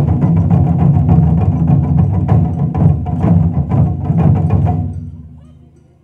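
Japanese taiko drums struck rapidly and loudly together, stopping about five seconds in and ringing out as the sound fades.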